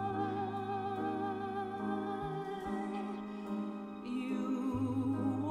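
Slow song with a singer holding long, wavering notes over piano and low bass notes.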